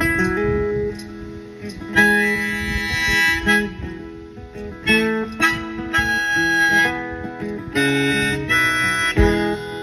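Live acoustic guitar strumming, with harmonica phrases of held notes played over it, in a short instrumental break.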